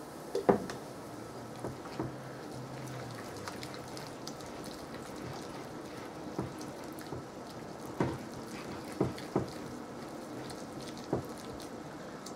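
Beer being poured from a can into a bowl of batter while a wire whisk stirs the wet, thick mixture, with several sharp clicks as the whisk knocks against the bowl.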